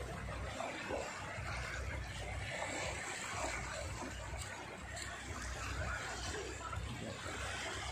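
Small waves washing in the shallows, with wind rumbling on the microphone and faint voices mixed in.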